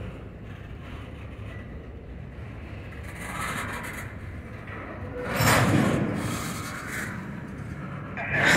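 Double-stack intermodal train of container well cars rolling past at close range: a steady low rumble of wheels on rail, with louder scraping noise swelling up about five seconds in and again near the end.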